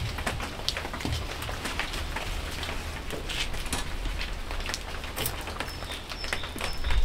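Light rain falling, with scattered raindrops ticking sharply on nearby surfaces.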